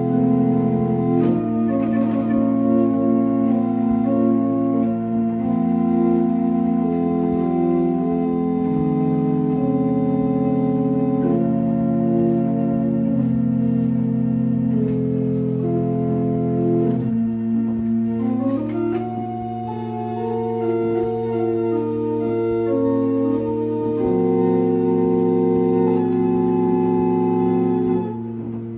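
Small wooden chamber organ playing slow music of held chords, each sustained steadily before moving to the next. The sound drops briefly near the end.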